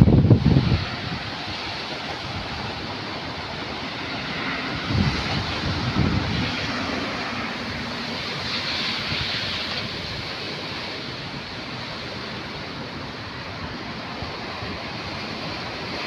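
Strong wind blowing: a steady rushing hiss, with gusts buffeting the microphone at the very start and again about five to six seconds in.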